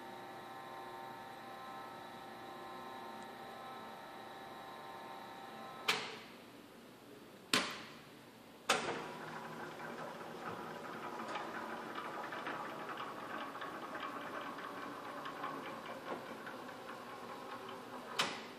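Kent surface grinder running with a steady electric motor hum and whine. It is switched at its control panel with four sharp clicks of pushbuttons or contactors. After the third click the machine's sound turns rougher, with fine rapid ticking.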